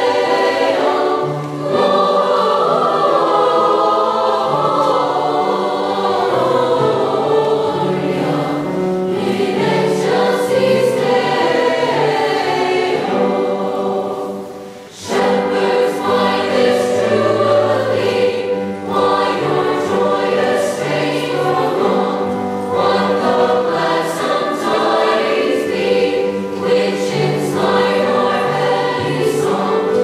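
Youth choir singing together, with one short pause between phrases about halfway through.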